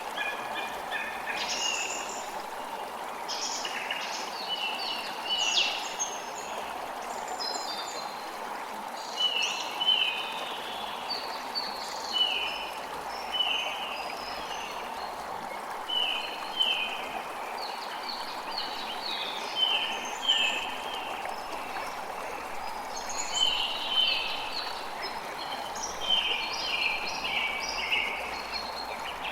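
Forest ambience: several birds chirping and singing, with runs of short, quickly repeated descending notes, over a steady even rushing noise.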